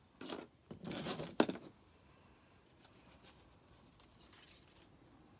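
Paper rustling and rubbing under a hand, in two short bursts with a sharp tap about a second and a half in, then faint small ticks and rustles of handling.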